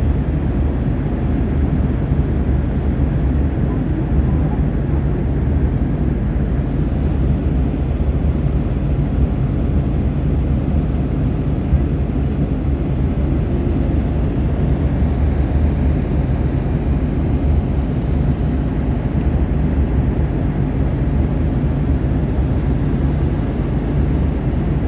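Airplane engines running with a steady low drone that holds level throughout.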